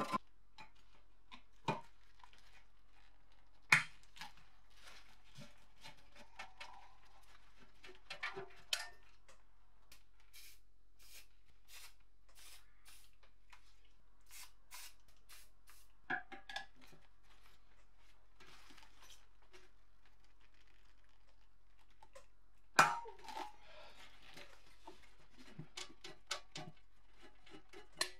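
Hand work on a rusty steel guillotine: a scraper working at flaking paint and tools clinking on the metal, with two sharp knocks, about 4 seconds in and near the end. In the middle comes a run of short hissing sprays from an aerosol can of penetrating oil.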